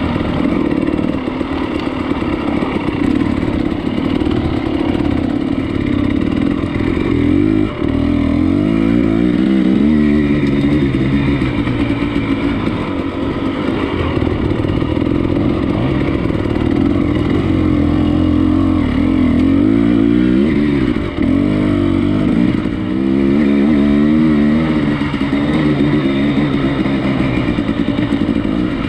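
Motorcycle engine running steadily under way, its pitch rising and falling with the throttle. Brief dips about 8 and 21 seconds in sound like gear changes.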